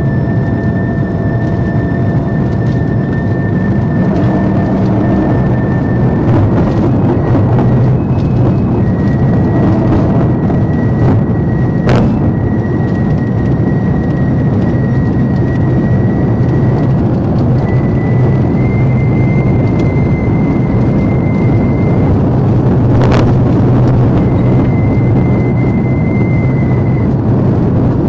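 Police patrol car driving at around 100 mph, heard from inside the cabin: steady, loud engine, tyre and wind noise. A thin high whine rides on top and edges up in pitch as speed climbs. Two sharp clicks come about 12 and 23 seconds in.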